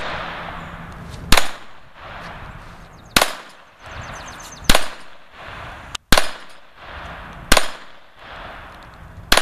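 Six single handgun shots fired at a slow, steady pace, about one and a half seconds apart, each a sharp crack with a short tail.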